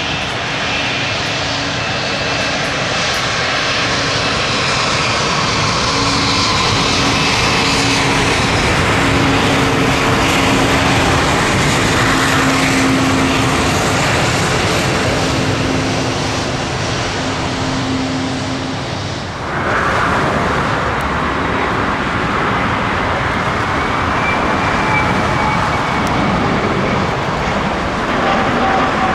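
Jet airliner engines passing close on landing, a loud steady rush of engine noise with a low hum under it. About two-thirds of the way in the sound breaks off abruptly and a similar jet rush carries on.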